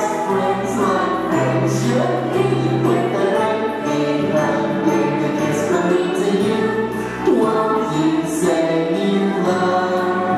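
A song with voices singing together over instrumental backing, with held bass notes that change every second or two and a bright high shimmer every couple of seconds.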